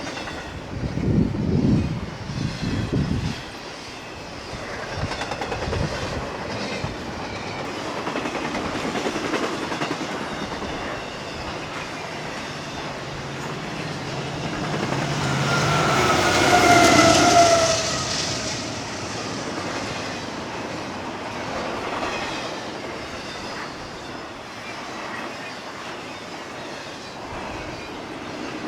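Intermodal freight cars rolling past on the main line, wheels clacking over the rail, with heavy low thumps in the first few seconds and a brief high-pitched squeal about halfway through.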